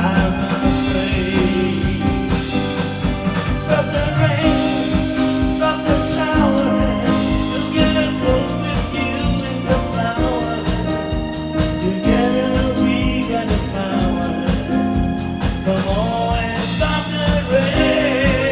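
A song: a solo singer's voice holding notes with vibrato over a backing band with a steady beat.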